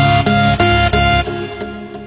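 Background music with quick, evenly spaced notes, about four a second, fading out over the second half.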